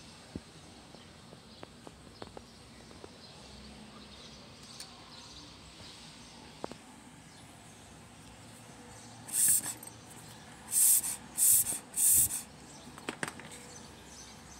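A vintage Ledraplastic hollow rubber toy figure being handled and squeezed by hand. Light ticks and taps come first, then four short, loud, hissy rubbing squeaks of thumb on rubber, close together near the end.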